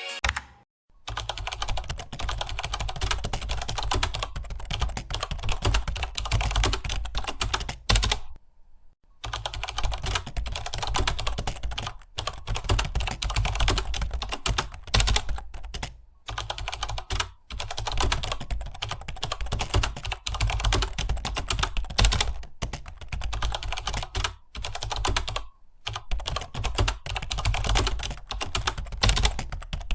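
Fast, continuous typing on a computer keyboard, broken by a few short pauses, the longest about a second long some eight seconds in.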